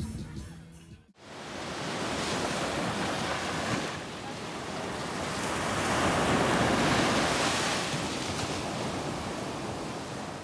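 Ocean surf: waves breaking and washing up a sandy beach, starting about a second in and swelling to its loudest about six to seven seconds in before easing off.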